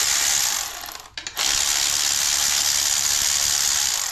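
Powered ratchet running in long steady spells, a dense mechanical rattle with hiss, stopping briefly about a second in and again at the very end, as bolts are run out of a 4L60 transmission.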